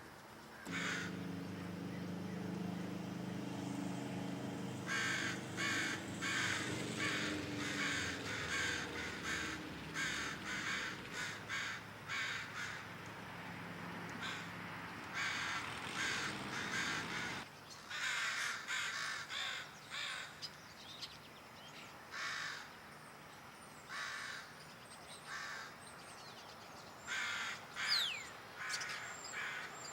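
Crows cawing over and over in short bursts. Under the first half runs a low steady engine-like hum that stops abruptly about halfway through.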